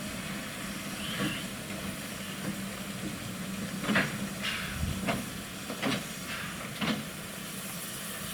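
Narrow-gauge steam locomotive standing with a steady hiss and low hum, with four sharp clanks between about four and seven seconds in.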